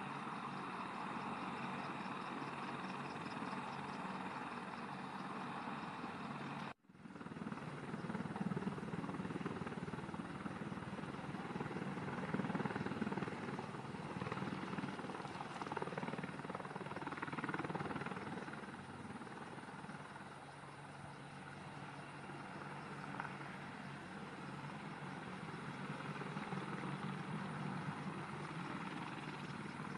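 AH-64E Apache attack helicopter's rotors and turbine engines running steadily as it lifts off and hovers low. The sound drops out for a moment about seven seconds in, then comes back louder for a while.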